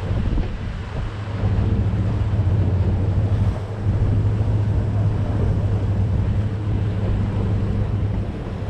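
Boat engine running steadily with a low hum, with wind buffeting the microphone and sea water washing around.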